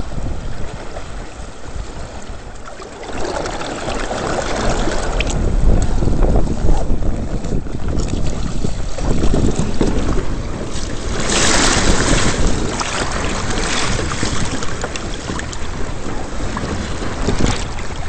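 Wind buffeting the microphone and water rushing and slapping against the hulls of a Hobie Adventure Island sailing trimaran moving fast in strong wind. It grows louder about three seconds in, and a loud hissing rush of spray comes about two-thirds of the way through.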